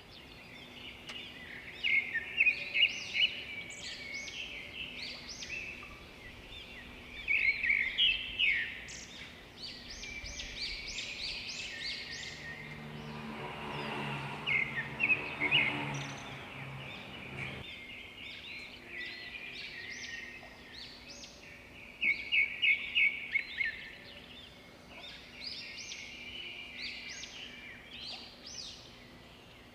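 Birds chirping in quick, repeated clusters of short calls throughout. In the middle, a low hum swells for a few seconds and then cuts off suddenly.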